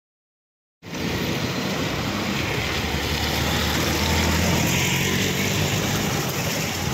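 Silent for about the first second, then street traffic: motorcycle engines running close by as motorbikes pass, a steady mix of engine hum and road noise.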